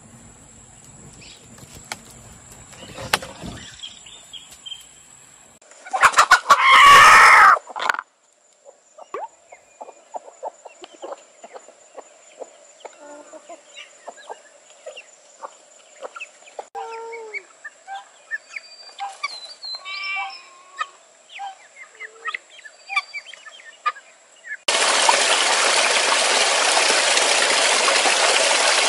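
Chickens: a rooster crows loudly once, about six seconds in, then scattered short clucks, chirps and clicks follow. Near the end a small stream starts up suddenly, water rushing steadily over rocks.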